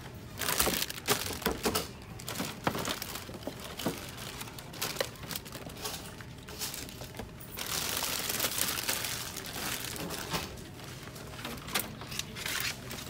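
Plastic and packaging crinkling and rustling as shopping items are handled, with scattered sharp clicks and knocks, and a longer spell of rustling about eight seconds in.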